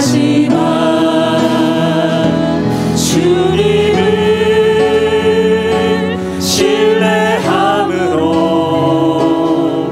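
Mixed-voice worship team of one man and three women singing a praise song into microphones, holding long notes in harmony over a steady musical backing.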